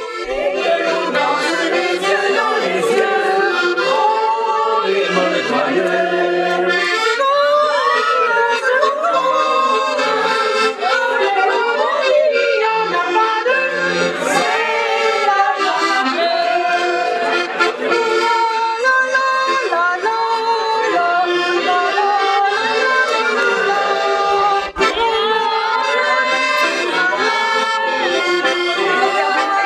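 Accordion music playing a melody.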